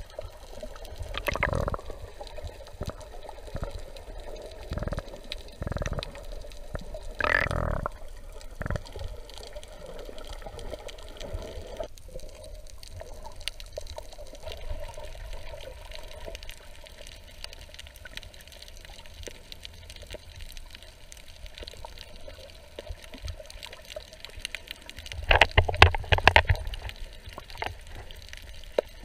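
Underwater sound heard through a submerged camera: water moving and gurgling around it, with a faint crackle throughout. A few short bubbling bursts come early, and a louder cluster comes a few seconds before the end.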